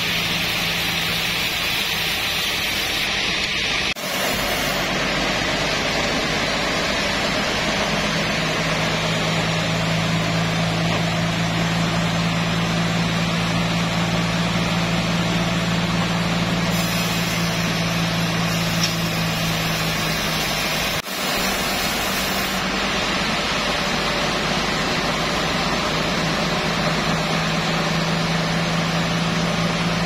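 Band sawmill running, a steady machine drone with a constant low hum under it; it drops out for a moment twice, about four seconds in and again about twenty-one seconds in.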